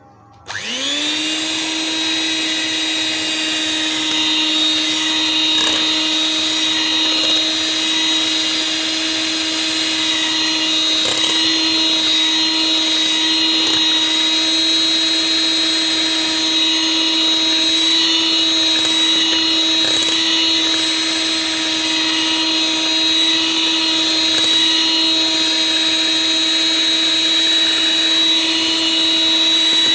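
Electric hand mixer switched on about half a second in, its motor winding up to speed and then running at a steady high whine as its wire beaters whip eggs and sugar.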